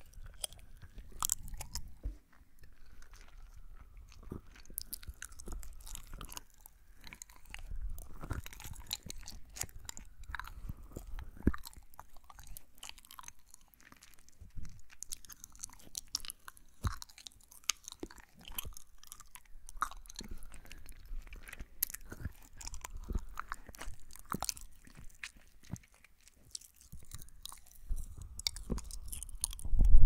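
Close-up chewing and biting of jelly candy with the mouth right at a binaural microphone, a steady run of many small sharp clicks. There is a louder low bump at the very end.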